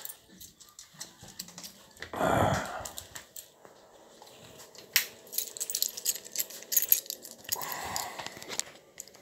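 Small metal objects jingling and clicking, amid knocks from handling, with a brief louder rush of noise about two seconds in.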